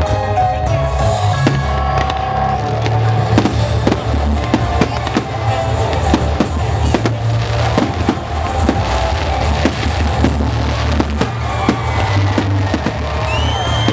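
Fireworks display: many sharp bangs and crackles of bursting shells over loud music with a pulsing bass. A whistling tone comes in near the end.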